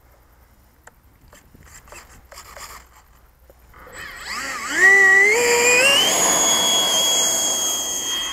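90 mm electric ducted fan of a model L-39 jet spooling up from about four seconds in, its whine climbing in steps to a steady high pitch at full throttle for the takeoff run. Faint clicks come before it.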